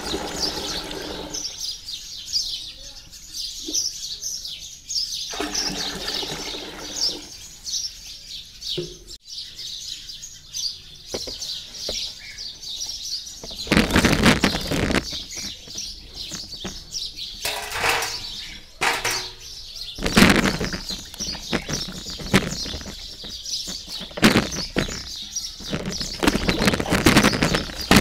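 Water runs into a plastic tub at the start. About halfway, whole guavas tipped from a steel bowl splash into the water, and near the end a hand swishes and rubs them clean. Birds chirp throughout.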